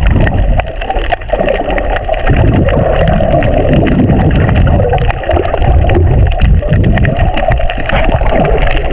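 Underwater recording: a loud, continuous rumble and wash of moving water, dotted with many sharp clicks, cutting off suddenly at the end.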